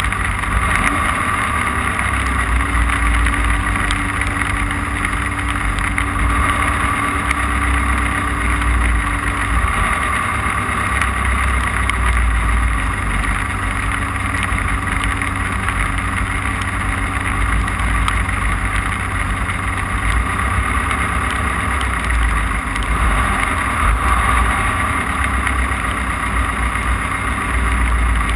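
Off-road race car's engine running steadily at speed, heard from on board over a constant low rumble of the drivetrain and terrain.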